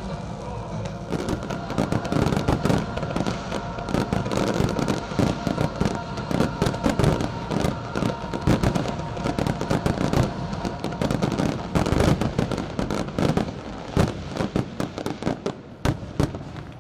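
A fireworks display at full barrage: rapid, overlapping bangs and crackling bursts, loud and continuous, with music playing underneath. The bangs thin out near the end.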